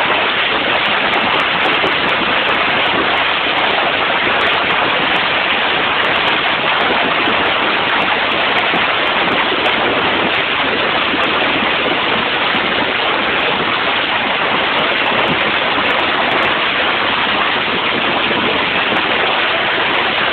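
Hail and heavy rain falling in a storm: a loud, dense, steady rush of impacts, with scattered sharp clicks of hailstones.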